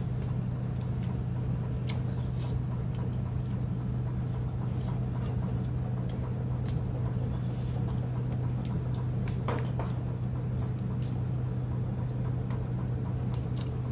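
A steady low hum runs under scattered light clicks and rustles from people eating with their hands off a steel plate and banana leaves.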